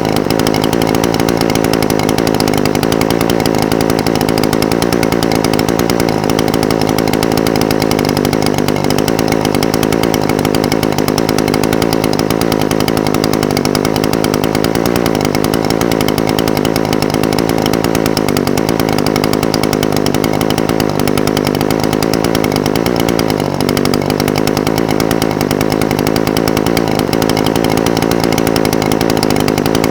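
Echo SRM-420TES brush cutter's two-stroke engine idling steadily, its idle speed wavering slightly now and then.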